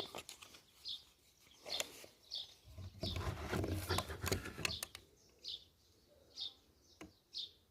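A small bird chirping repeatedly, short high notes about once a second. In the middle a few seconds of rustling with sharp knocks.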